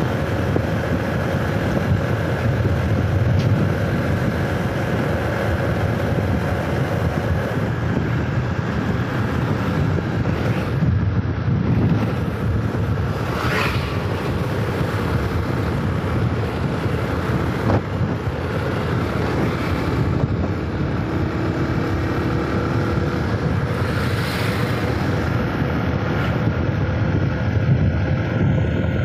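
Wind rushing over the microphone and road noise from a vehicle driving steadily along a paved road, with a faint engine hum underneath. Twice, about a third and about five-sixths of the way through, another vehicle swishes past.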